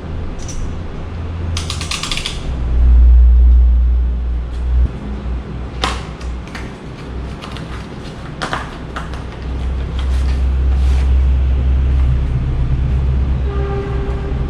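Unpacking handling sounds: packaging rustling briefly near the start, then a few sharp clicks and knocks as the parts of a follow-focus kit are lifted out and set down, over a low rumble of things being moved on the table.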